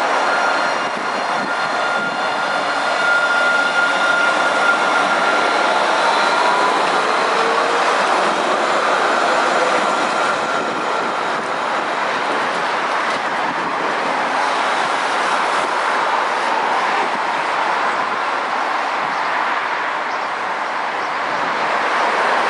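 Alstom Citadis tram of the Dubai Tram running along its track, a steady rolling rumble throughout. A high wheel squeal is held from about two seconds in to about seven, and a brief rising whine follows about seven seconds in.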